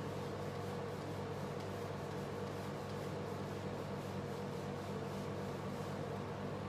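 Whiteboard eraser rubbing across the board in repeated wiping strokes, faint, over a steady low hum.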